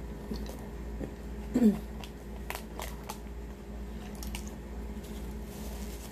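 Close-miked chewing of a pulled pork sandwich: wet mouth clicks and smacks at irregular moments, with a short falling vocal sound from the eater about a second and a half in.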